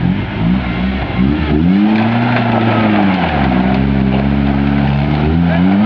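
Off-road vehicle engine revving, its pitch rising and falling repeatedly with the throttle: a few quick blips, a long rise and fall, then a steadier stretch before it climbs again near the end.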